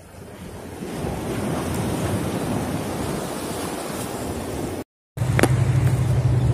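Sea waves washing against jetty rocks with wind on the microphone, swelling about a second in. Near the end the sound cuts out for a moment and gives way to a low steady hum with wind rumble.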